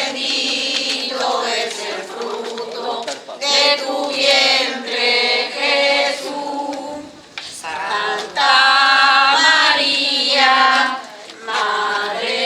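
A group of voices, many of them women's, singing a religious hymn together without accompaniment, in phrases with short breaks between them.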